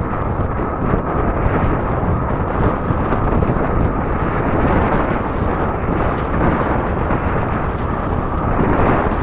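Wind buffeting the microphone of a camera riding on a moving fat-tire e-bike: a steady, loud rumbling rush with a few light ticks.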